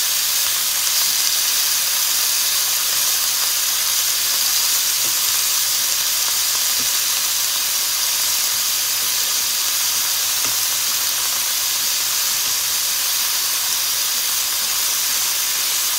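Pieces of fermented pork belly (naem sam chan) sizzling steadily in their own rendered fat in a frying pan, a constant even hiss.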